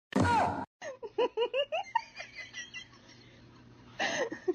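A person giggling: a loud short burst, then a quick run of short rising laughs that trail off, with more laughter near the end.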